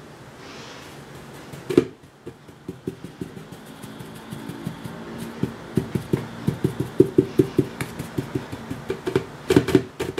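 Soft brush being dabbed repeatedly onto silver leaf laid over a glass plate, pressing the leaf down so it sticks: a run of short dull taps, a few each second, getting louder toward the end.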